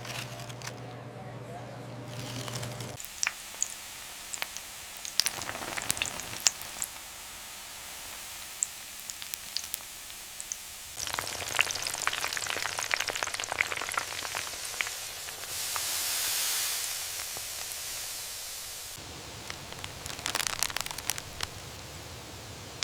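Crackling and sizzling, like chicken frying in hot oil: a hiss scattered with sharp pops. The texture changes abruptly several times.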